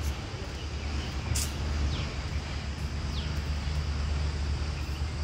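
Steady low outdoor rumble under a faint hiss, with one sharp click about a second and a half in.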